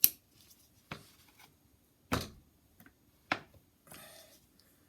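Swiss Army knife and its parts being handled: four sharp clicks about a second apart, the first the loudest, then a brief rustle near the end.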